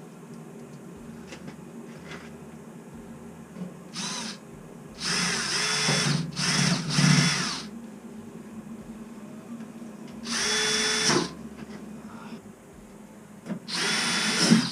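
Power drill running in about six short bursts of a second or so, each at a steady pitch, over a continuous low hum.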